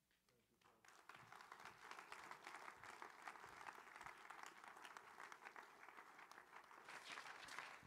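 Faint applause from a congregation, with many hands clapping. It starts about a second in and keeps going.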